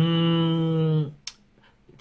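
A man humming one level, held 'mmm' for about a second, then a single short click.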